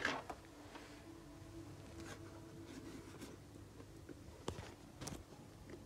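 Faint rustling and handling noise from a handheld phone being moved about, with two light clicks about four and a half and five seconds in.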